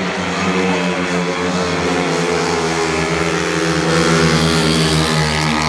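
Pack of speedway motorcycles, 500 cc single-cylinder racing engines, running at full throttle around the dirt track, loudest as the bikes pass close about four seconds in.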